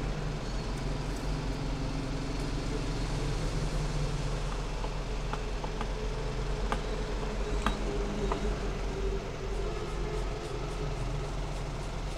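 Steady low hum over an even background noise, with a few small clicks around the middle.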